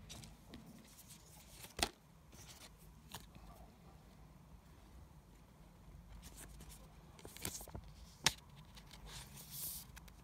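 Quiet handling of Pokémon trading-card packaging and cards: a few sharp clicks and taps, the loudest about two seconds in and near eight seconds, then a short rustle near the end.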